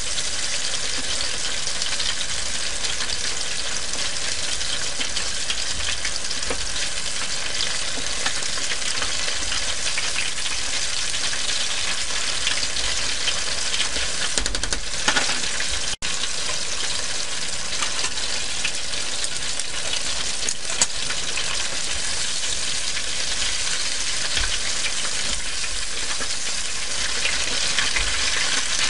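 Chicken drumsticks deep-frying in hot oil in a stainless steel pot: a steady, dense crackling sizzle. It cuts out for an instant about halfway through.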